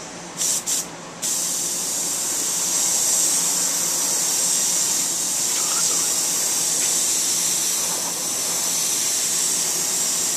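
Airbrush spraying paint with compressed air: two short bursts, then a steady hiss from about a second in.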